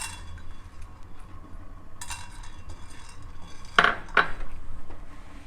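Metal spoon scraping and clinking against a cooking pot, with two sharp clinks about four seconds in.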